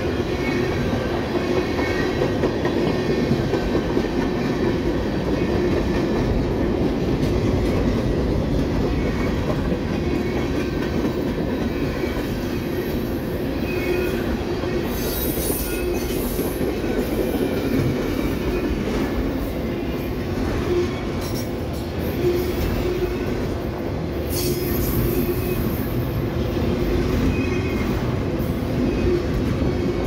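Freight cars of a mixed manifest train rolling steadily past: a continuous rumble of steel wheels on rail, with clicks at the rail joints and thin, wavering wheel squeals that come and go.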